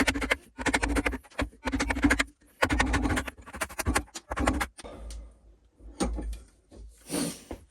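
Heavy bench vise being worked and tested by hand: metal clacking and rattling in a series of short bursts, then a few scattered knocks.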